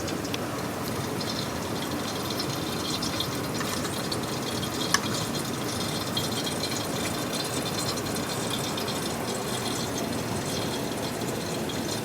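Steady rush of falling water from the waterfall and rain, with one sharp click about five seconds in.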